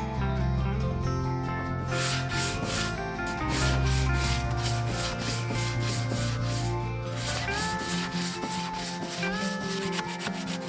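Sandpaper on a hand sanding block rubbed back and forth over wooden boards in quick, even strokes, several a second, starting about two seconds in, with music playing under it.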